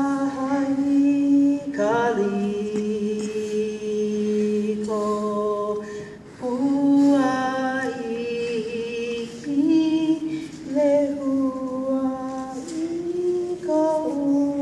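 Slow unaccompanied singing, with long held notes that slide from one pitch to the next.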